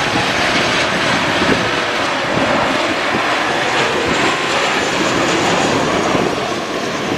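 Boeing 737-900ER's CFM56-7B turbofan engines at approach power as the jet passes low over the runway to land: a steady, loud jet rush.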